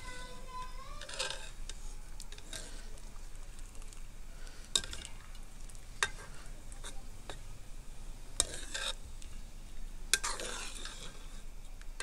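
Long metal ladle stirring and scooping through hot broth in a metal pot, as boiled chicken is fished out of the water. It makes swishing noises and sharp clinks against the pot several times.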